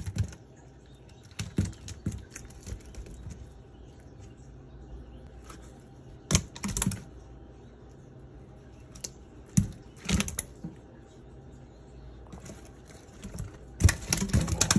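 Live sunfish and crappie flopping in a stainless steel sink: scattered wet slaps and clicks of tails against the steel and against each other. They come in short flurries a few seconds apart, busiest near the end.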